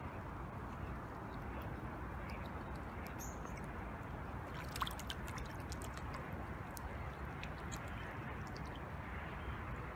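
Two geese dabbling with their bills in shallow water: small splashes, drips and gurgles over a steady hiss, with a sharp click about five seconds in.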